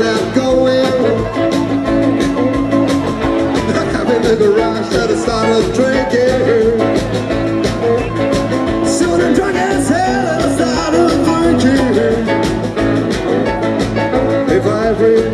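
Live rockabilly band playing: electric guitars, saxophone, bass guitar and drums over a steady beat.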